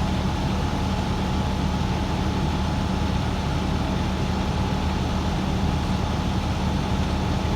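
Engine idling steadily: a constant low hum with a faint steady whine above it.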